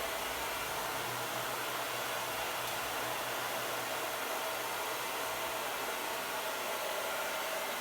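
Hair dryer on its hot setting, blowing steadily with an even rushing noise and a faint low hum. It is heating a dried-out refrigerator door gasket to soften it.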